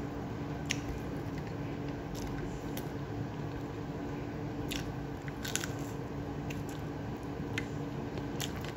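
A person eating by mouth: chewing and biting food, with several short crisp crunches and mouth clicks scattered through, over a steady low hum.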